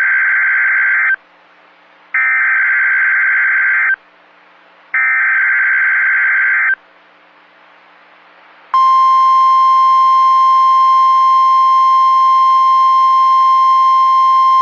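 Emergency Alert System SAME header: three harsh digital data bursts of about two seconds each, a second apart, then, about nine seconds in, the steady single-pitch NOAA Weather Radio 1050 Hz warning alarm tone begins and holds. Together they announce an incoming tornado watch alert.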